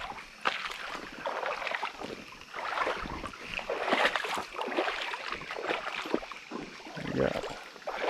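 Shallow creek water running over rocks, with uneven splashes and gurgling close to the microphone.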